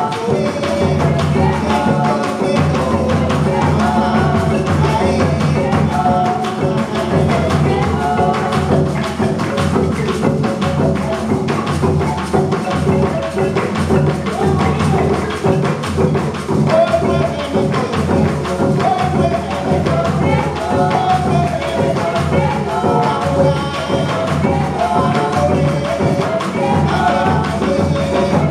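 Colombian Pacific juga played live on a marimba de chonta with cununo hand drums and a bombo, with voices singing over the beat.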